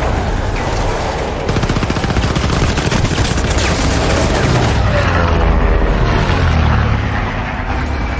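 Long burst of rapid machine-gun fire, densest through the middle, over a steady low engine rumble.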